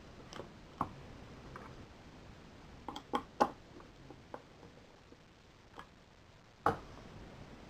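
Light, irregular metallic clicks and taps of tweezers and small lock parts being handled at a euro cylinder while it is pinned. There is a quick run of three clicks about three seconds in, and the loudest tap comes near the end.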